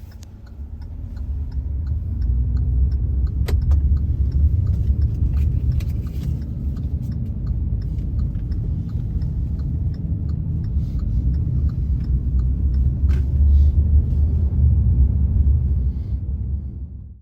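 Low road rumble of a car's cabin while driving, swelling over the first couple of seconds, then holding steady before fading out.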